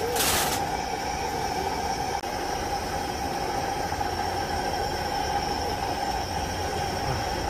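Steady hiss with a constant mid-pitched whine from the cooker under a pot of stew at a rolling boil, unchanging throughout.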